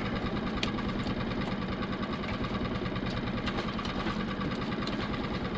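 Small fishing boat's engine idling steadily, with a few light clicks and knocks as a lobster pot is handled on deck.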